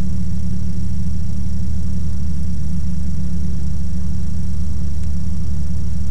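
Ikarus C42 microlight's engine running steadily in flight, a loud, even low drone heard from the cockpit.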